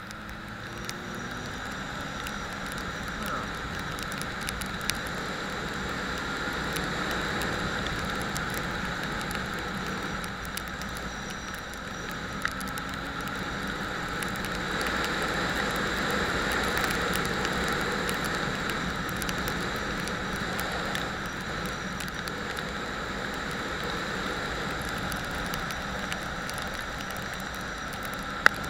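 Motorcycle under way, a low engine note under a steady rush of wind on the microphone that swells and eases with speed, and a single sharp click near the end.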